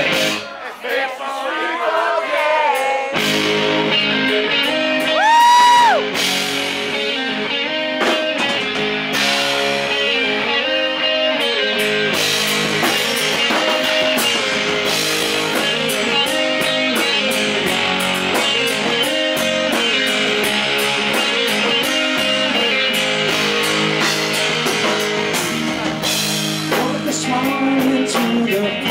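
Live rock band playing an instrumental break: electric guitar lead with bent notes over bass and drums, heard from the stage through the amps and monitors rather than the house mix. The bass and drums fill in about three seconds in, and a single held high guitar note a couple of seconds later is the loudest moment.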